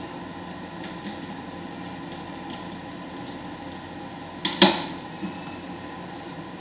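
Steady hum of lab equipment, broken by a sharp double clack about four and a half seconds in, with a couple of light clicks around it.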